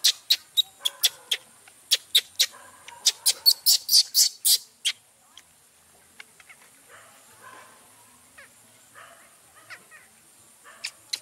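Baby macaque giving a rapid string of short, shrill squeals, about three or four a second, that stops about five seconds in. Afterwards there are only faint soft sounds, with two more sharp squeals near the end.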